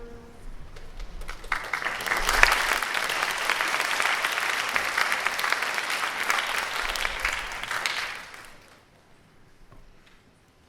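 Audience applauding. The clapping swells in about a second after the band's held final chord cuts off, and dies away after about eight seconds.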